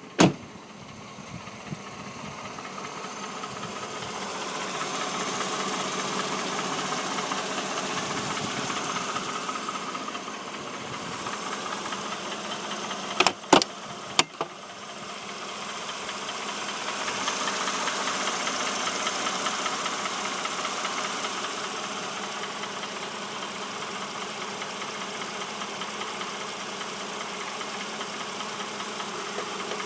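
Mercedes GLK300's 3.0-litre M272 V6 running cold with a knock from the engine. There is a sharp click just after the start and a few more about 13 to 14 seconds in.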